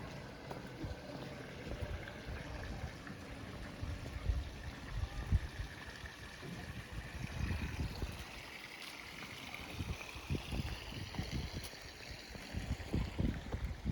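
Wind buffeting the microphone in uneven low gusts. A faint whine rises in pitch from about six seconds in until near the end.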